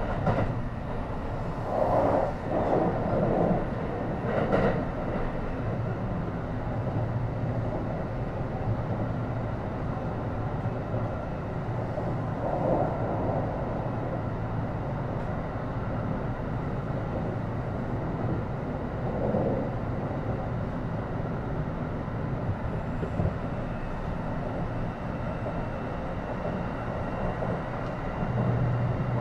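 Kintetsu 9820 series electric train running along the line, heard from inside a car: a steady rumble of wheels on the track, with a few louder swells of noise. A low hum grows stronger near the end.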